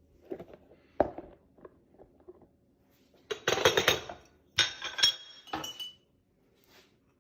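Glass and kitchenware clinking as they are handled: a couple of light knocks, then two bursts of rattling clatter, the second with a high ringing.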